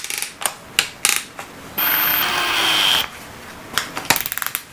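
A socket adapter is fitted into a cordless hammer drill's keyless chuck, with sharp clicks and the chuck ratcheting. Near the middle the drill's motor runs briefly for about a second. A quick run of ratchet clicks follows near the end.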